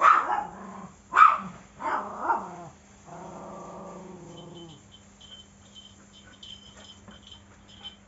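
A small dog barking three or four times in quick succession, then a drawn-out growl lasting nearly two seconds.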